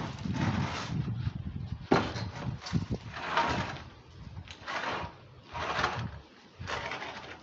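Wooden scaffold planks being handled: boards sliding and scraping against each other in repeated short swishes, with a sharp knock of wood about two seconds in and a smaller one about a second later.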